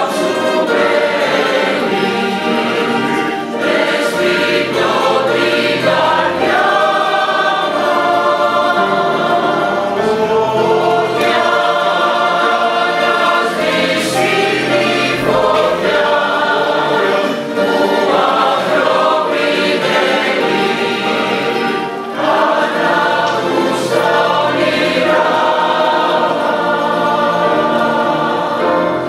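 Mixed choir of men's and women's voices singing in phrases, accompanied by a mandolinata of mandolins and guitars.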